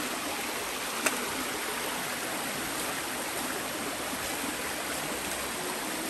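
Shallow river water rushing steadily over rocks and between boulders. A single sharp click sounds about a second in.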